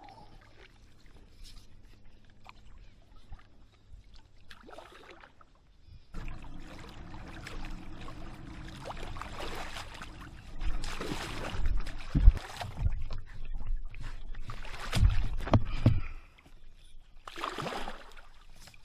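Paddle strokes dipping and splashing as an inflatable stand-up paddle board moves down a shallow creek. The first few seconds are quiet. About six seconds in it turns to louder water splashing and rushing, with a few heavy low thumps in the middle, and one more splash near the end.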